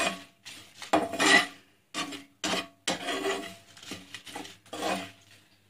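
Metal spoon scraping across a nonstick pan as grated dry coconut and dried red chillies are stirred while dry-roasting, in repeated rasping strokes about once or twice a second.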